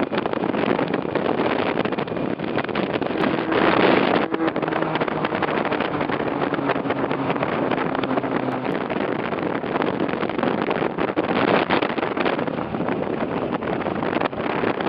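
Motorcycle riding along, its engine running under a steady rush of wind over the microphone; a faint engine tone shifts in pitch in the middle.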